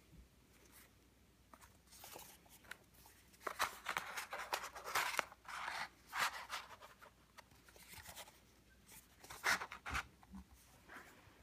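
Paper rustling and crinkling as a rolled-paper tube with wooden sticks through it is handled, in irregular scratchy bursts that are busiest through the middle and again near the end.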